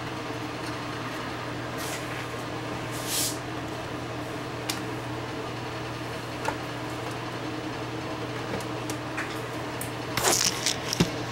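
Hands handling the wiring and chassis of an opened stereo receiver: a short rustle, a few light clicks, then a cluster of clattering knocks near the end, over a steady low hum.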